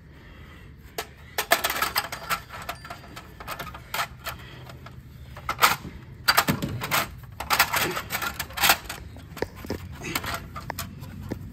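Plastic hubcap being pushed and slapped onto a steel wheel: a run of irregular sharp clicks and knocks of plastic against metal, starting about a second in.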